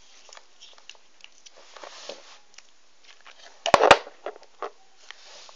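Light clicks and faint scraping from small objects being handled at close range, with a sharp double click about two-thirds of the way through, followed by a few softer ticks.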